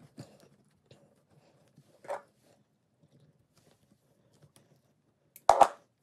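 Small rustles and scrapes of copper electrical wires being handled and twisted together into a pigtail, with a louder scrape about two seconds in and two sharp clicks close together near the end, the loudest sounds.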